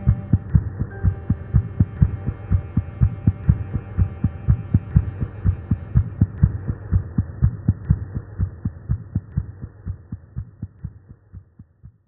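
Recorded heartbeat: a steady run of soft, low, regular beats that fade out gradually over the last few seconds and stop.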